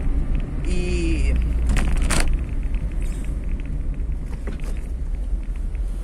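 Car cabin noise while driving: a steady low rumble of engine and tyres on the road, with a short pitched sound about a second in and a sharp knock or bump around two seconds in.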